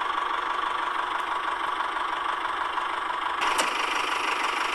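Small electric motor of a handmade toy tractor running steadily with a gearbox whir; about three and a half seconds in it turns brighter and harsher.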